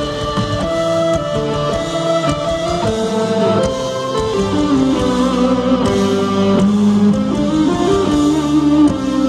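A progressive metal band playing live through a concert PA: electric guitars carrying a melodic line of held and moving notes over bass, keyboards and drums. Heard from within the audience.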